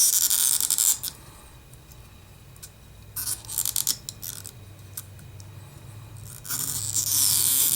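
Adhesive being peeled off under an iPhone 8 Plus battery as the battery is pulled free: two bouts of a hissy tearing, scraping sound, one at the start and one near the end, with a few small clicks between.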